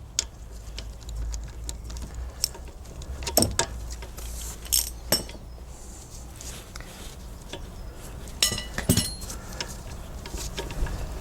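Scattered metallic clinks and taps of hand tools and brake caliper parts being handled, with a few louder knocks about a third and three quarters of the way in.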